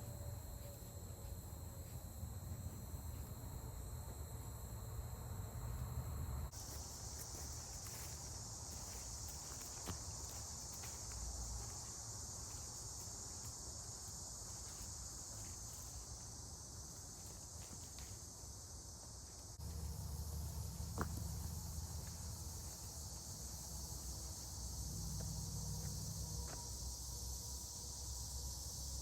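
Steady high-pitched insect chorus, like crickets, over a low rumble. Its pitch and spread change abruptly about a quarter of the way in, and the low rumble grows louder about two-thirds through, with a few faint clicks.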